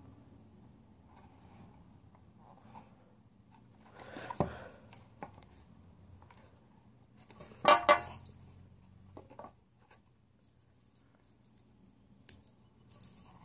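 Hands handling a cardboard VR viewer, prying at its plastic lens covers: soft rustling with a few sharp clicks and clacks, the loudest a quick double clack about eight seconds in.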